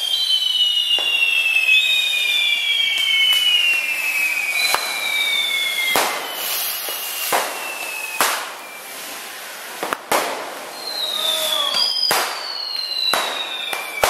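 Hand-held fountain fireworks spraying sparks with a continuous hiss, several long whistles sliding slowly down in pitch over one another, and sharp firecracker bangs every second or two.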